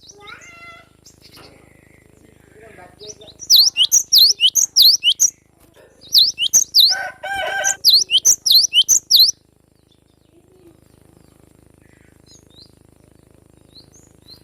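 Cinereous tit (glatik batu) calling: two bouts of fast, sharp, high chirps, with a harsher buzzy note in the second bout. After that it falls mostly quiet, with a few faint chirps near the end.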